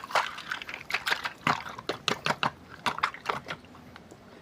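A small toy truck being scrubbed clean with water: a quick, irregular run of wet scrubbing and clicking strokes that fades out after about three and a half seconds.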